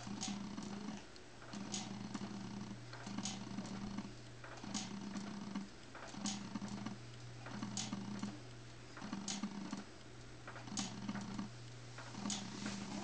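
Motorized baby cradle swing running: its motor hums in short, regular pulses over a steady low drone, with a sharp click about every second and a half as the seat swings back and forth.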